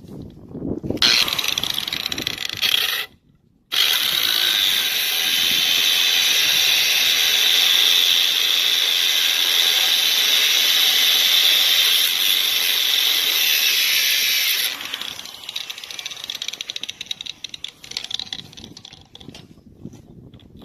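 Power tool cutting through the seized metal bushing of a car's shifter linkage, a steady loud grind. It stops briefly about three seconds in, runs again until about fifteen seconds, then winds down.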